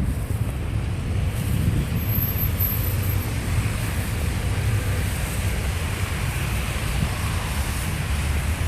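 Blizzard wind buffeting the microphone: a steady low rumble that flutters, with a faint hiss above it.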